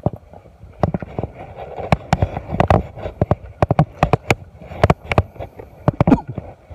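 Footsteps of a person walking quickly over soft mangrove mud, roots and twigs: irregular thuds and knocks, several each second, with leaves and branches brushing past.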